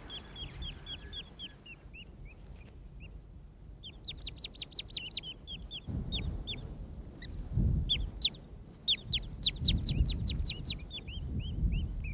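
Newly hatched red-legged partridge chicks peeping in the nest. Their calls are rapid, high, downward-sliding peeps, scattered at first and then coming in dense runs from about four seconds in. A low rumble sits under them in the second half.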